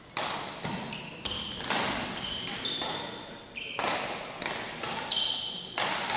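Badminton doubles rally in a sports hall: a quick string of sharp racket-on-shuttlecock hits and footfalls, with short high squeaks of court shoes on the hall floor, each hit ringing on in the large hall.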